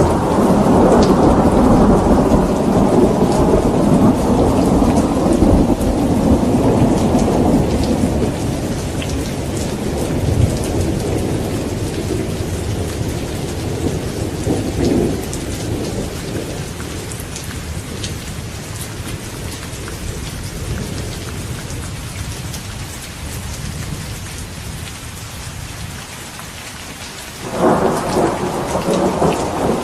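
Rain falling steadily with rolling thunder: a heavy rumble fades away over the first several seconds, weaker rumbles swell briefly around the middle, and a new thunderclap breaks in suddenly near the end.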